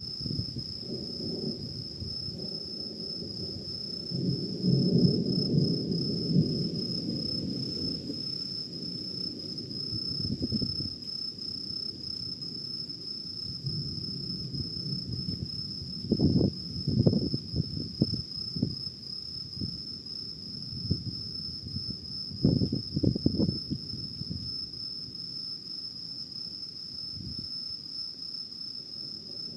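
Thunder rumbling and crackling three times, about four, sixteen and twenty-two seconds in, over a steady high chirring of insects.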